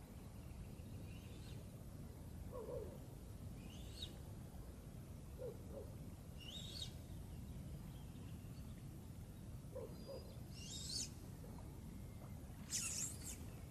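Birds calling at dawn: short, high calls every few seconds, the loudest near the end, over a faint steady low rumble. A more distant bird gives pairs of low hooting notes, three times.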